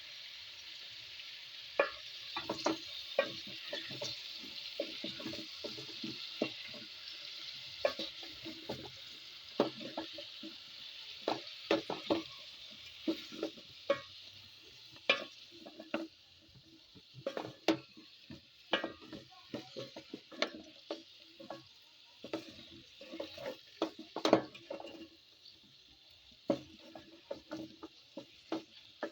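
Food sizzling as it fries in a pot, with a spoon stirring and repeatedly knocking and scraping against the pot. The sizzle dies down about halfway through while the stirring knocks carry on.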